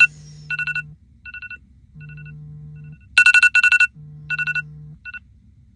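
Smartphone alarm going off: clusters of rapid electronic beeps that are loud at the start and again about three seconds in, fading quieter in between. A low buzz sounds three times, about a second each, between the beep clusters.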